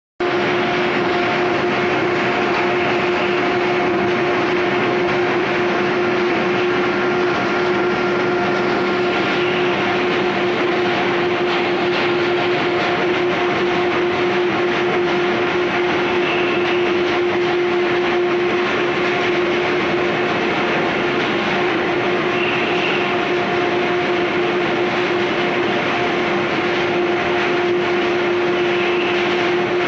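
Paperboard line's conveyor belts and gantry stacker running, a steady mechanical din with a constant hum.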